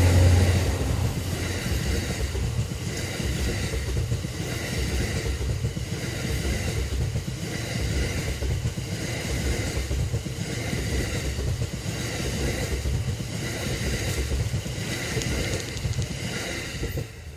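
E26-series sleeper coaches rolling past behind an EF64 electric locomotive: a steady rumble with wheel clatter repeating about once a second. It drops off suddenly at the end as the last car goes by.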